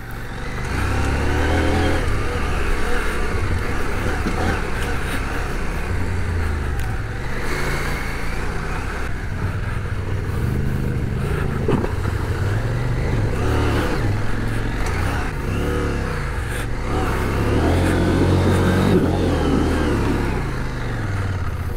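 Adventure motorcycle's parallel-twin engine running and revving up and down several times while riding a rough dirt trail, over steady wind and road noise on the helmet microphone.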